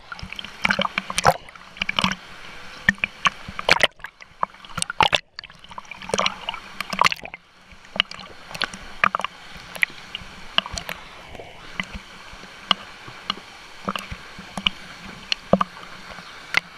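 Water slapping and splashing against a GoPro floating at the surface of a pool, in quick irregular slaps with a few brief dropouts, over the steady rush of a small waterfall.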